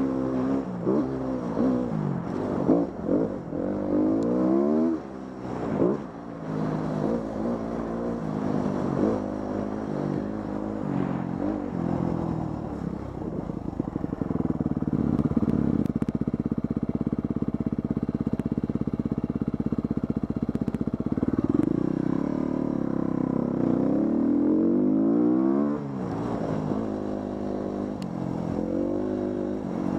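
Dirt bike engine on a trail ride, revving up and down over and over as the throttle is worked and gears change. Then it holds a steady high pitch for about twelve seconds in the middle, drops off suddenly and picks up again near the end.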